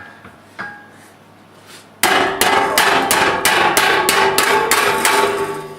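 A hammer striking metal in a quick run of about a dozen blows, three to four a second, each one ringing. It starts about two seconds in.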